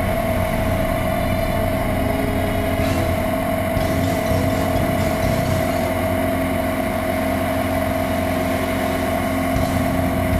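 Single-engine light aircraft's piston engine and propeller running steadily at takeoff power through the takeoff roll, liftoff and initial climb, heard from inside the cockpit as a constant, loud drone.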